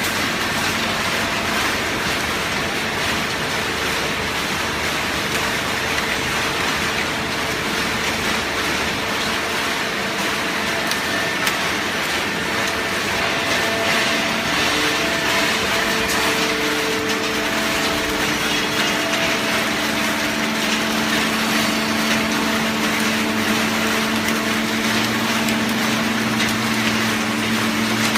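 Horizontal hydraulic baler baling waste cardboard cartons: a steady, loud machine noise with a hum that grows stronger and lower in the second half.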